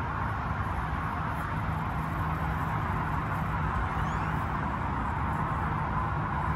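Steady outdoor background noise: an even hiss with a low rumble beneath it and no distinct events.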